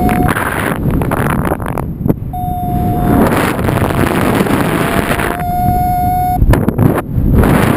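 Airflow in paraglider flight buffeting the microphone in heavy gusting rushes, with a thin steady tone that sounds for about a second at a time, three times over.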